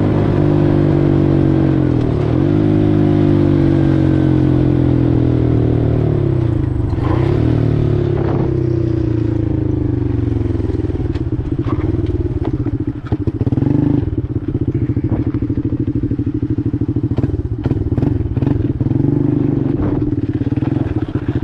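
Four-wheeler (ATV) engine running under way, its pitch dropping and climbing again three times in the first half as the rider changes gear, then settling into a lower, steadier run. Sharp knocks and rattles sound through the second half.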